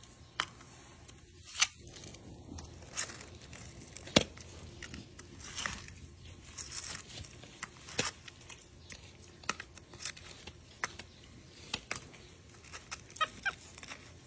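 A plastic fork stirring and scraping a thick wet patching paste in a plastic food tub, with scattered sharp clicks where the fork knocks against the tub.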